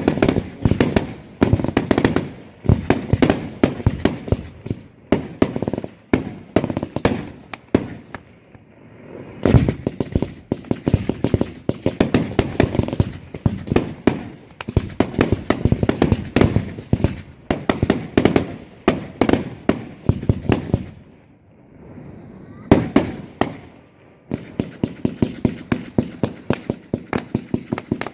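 Fireworks display: rapid volleys of sharp bangs and crackling, several a second, with two short lulls, one about eight seconds in and a longer one a little past twenty seconds.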